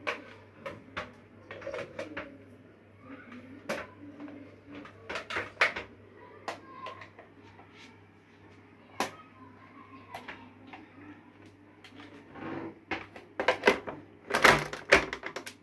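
Irregular clicks and knocks of a hand mixer being handled as its dough hooks are snapped into place, with a denser, louder clatter near the end. A faint steady low hum runs underneath.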